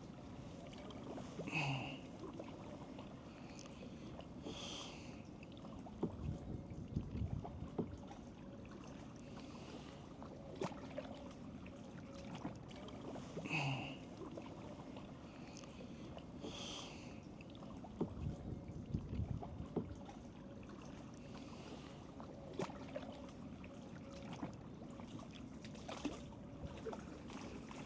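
Kayak paddling, fairly faint: the paddle dipping into the water with dribbles and splashes, and a few soft knocks.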